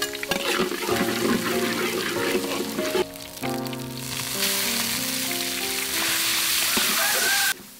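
Chopped garlic sizzling in hot oil in a steel wok, then minced pork sizzling as it is stirred in with a metal spoon; the sizzle grows louder about halfway through and cuts off suddenly near the end. Background music with held notes plays over it.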